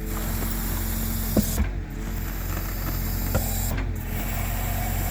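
Excavator-mounted tree-digging machine at work: the excavator's engine and hydraulics run steadily with a low hum, the hiss dropping out briefly about every two seconds, and two sharp knocks of the attachment, about a second and a half in and again about two seconds later.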